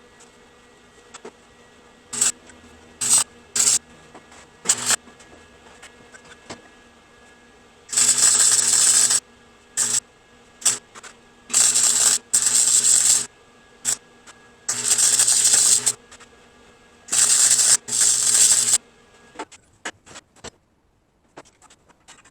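Arc welding of the steel mounting base in short bursts of crackling, each about a second long, six in a row in the second half, with a hum under each burst. Before them come a few sharp clicks and short spits.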